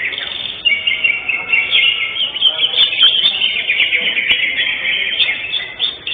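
Several caged cucak hijau (greater green leafbirds) singing at once in dense, rapid chirps and whistled phrases. Their songs overlap continuously, as birds do in a contest round.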